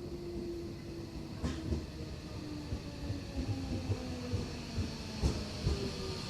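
Tokyo Metro 13000 series train pulling into a station, its traction motors whining at a pitch that falls steadily as it slows under braking. Two sharp knocks come about a second and a half in and again near the end.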